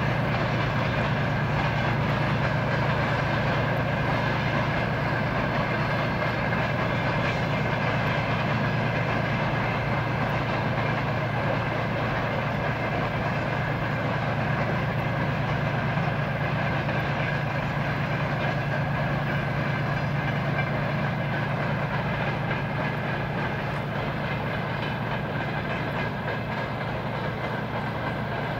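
2TE10 twin-section diesel locomotive's two-stroke opposed-piston engines pulling a freight train, a steady low drone that slowly fades as the locomotive moves away and the wagons roll past.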